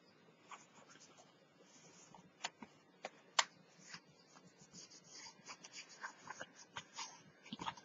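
Light handling of cardstock and paper strips: faint rustling with scattered small taps and clicks as the card pieces are moved and pressed together, a couple of sharper taps a few seconds in.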